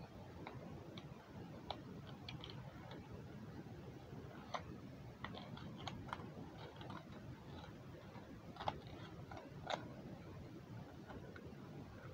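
Faint, irregular small clicks and ticks over a low steady hum of room noise.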